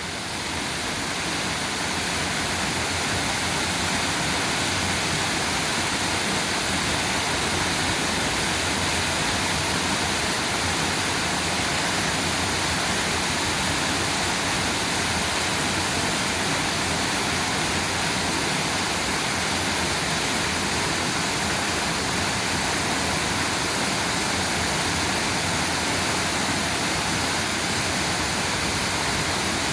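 Fifty-foot waterfall rushing, a steady, unbroken noise of falling water. It fades in over the first couple of seconds.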